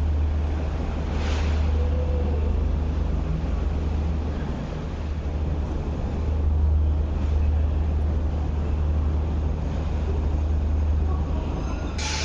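Steady low rumble of background noise in a ferry pier concourse, even throughout with no distinct events.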